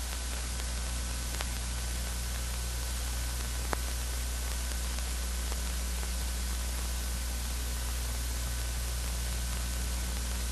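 Steady hiss and low mains hum of an old film soundtrack between lines of narration, with a faint click about four seconds in.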